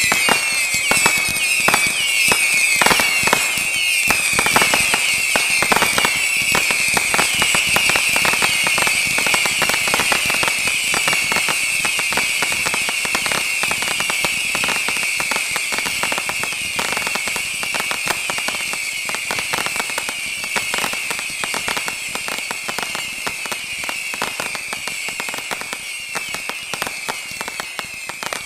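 Fireworks going off without a break: a dense run of rapid crackling pops with many overlapping whistling tones. It tapers off slightly toward the end.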